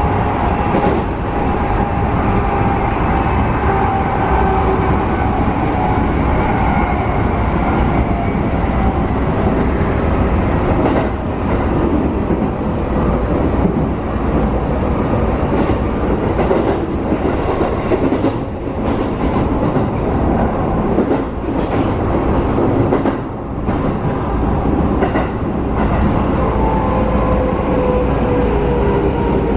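Keikyu New 1000 series electric train heard from inside the car: a steady rumble of wheels on rail with a few short clicks. A faint falling whine from the Mitsubishi IGBT-VVVF inverter and traction motors is heard at the start, and a clearer one near the end as the train slows.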